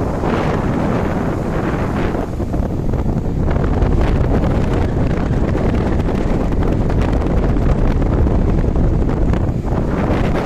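Strong sea wind buffeting the microphone over the rush of waves, a loud, steady roar with a few brief swells in the first few seconds.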